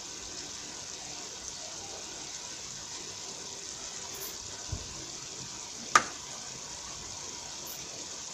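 Pot of sweet potato leaves boiling, a steady watery hiss. A dull thump a little before five seconds in and a sharp click about a second later.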